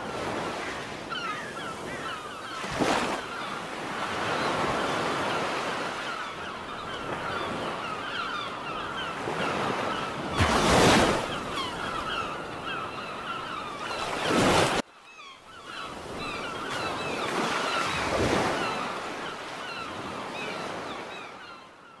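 Ocean surf washing in and out in swells, with many short seabird calls over it; the sound breaks off sharply about fifteen seconds in and then resumes.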